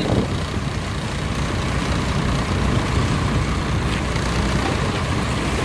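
Steady rumble and hiss of a small boat underway at sea: its engine running under wind noise on the microphone and water washing along the hull.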